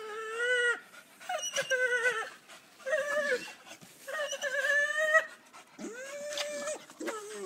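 Staffordshire bull terrier whining in about six drawn-out, high cries in a row, each under a second long, excited while playing at a hanging rope toy.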